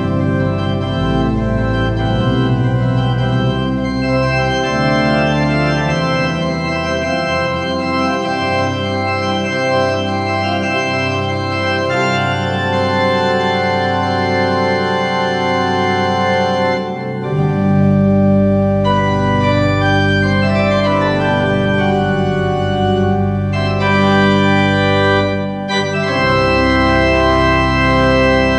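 Two-manual church organ playing a Baroque organ piece: full sustained chords changing in steps over deep pedal bass notes, which drop out for a stretch and return about midway.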